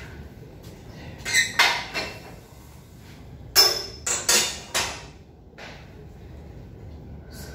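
Steel barbell clanking against the power rack's hooks as it is lifted out and set back in. The sharp metal knocks come in two clusters: three about a second and a half in, and four more about three and a half to five seconds in.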